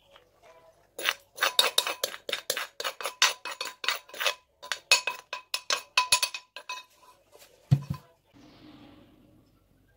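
A metal spoon clinking rapidly and repeatedly against a clay mortar and plate, the strikes ringing. One dull thump comes near the end.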